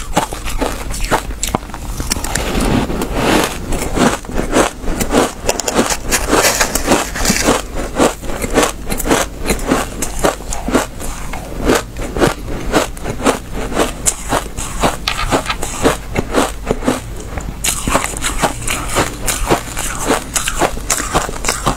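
Packed shaved ice being bitten and chewed close to the microphone: a dense, unbroken run of squeaky crunches and crackles as the frozen chunks break up in the mouth.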